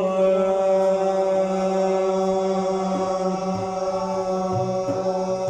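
A single long note held at one steady pitch in chanted Arabic religious praise singing (madih).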